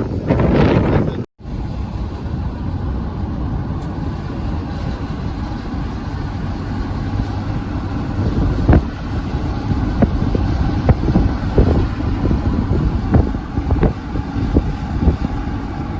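Wind buffeting the microphone, cut off about a second in. Then the steady low rumble of road and engine noise inside a moving vehicle, with scattered sharp clicks and knocks in the second half.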